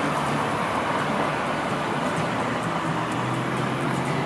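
City road traffic: cars driving past, a steady rushing road noise.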